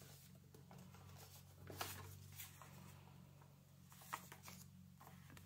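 Faint rustle and crinkle of polymer banknotes being pulled from a cash binder's plastic pocket and handled, with soft bursts about two seconds in and again about four seconds in, over a low steady hum.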